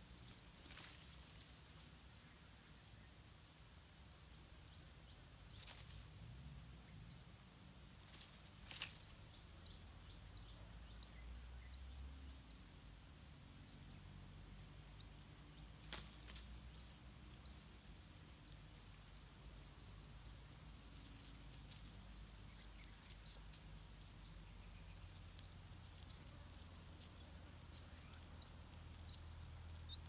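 Yellow-vented bulbul nestlings begging for food: thin, high-pitched squeaks repeated about three a second in long runs, growing sparser and fainter in the last third.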